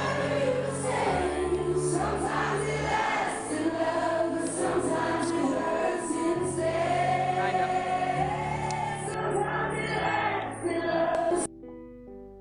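Music with a group of voices singing over a steady bass line. It cuts off abruptly near the end, and quiet keyboard notes follow.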